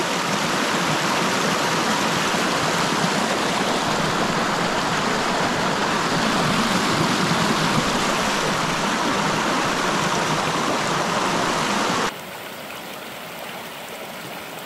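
Mountain creek water running, a steady loud rush. About twelve seconds in it cuts abruptly to a quieter, softer flow.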